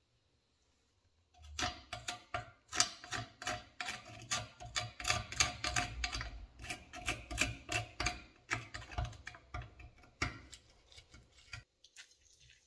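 Flat screwdriver tip scraping and picking at crusted rust and packed dirt on a cast iron meat slicer frame, in quick irregular scraping strokes. It starts about a second and a half in and stops shortly before the end.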